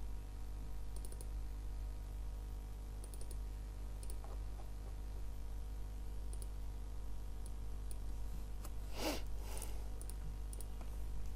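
Scattered computer mouse and keyboard clicks over a steady low hum. Two louder brief rustling noises come about two seconds before the end.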